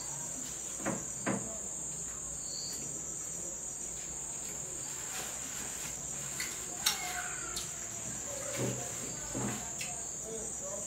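Insects chirring in a steady high-pitched drone, with a few soft knocks and sharp clicks scattered through.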